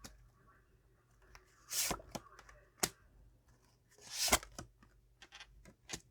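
Tarot cards being handled and laid out on a table: two short swishes of cards sliding, about two and four seconds in, and several light taps and clicks of cards set down.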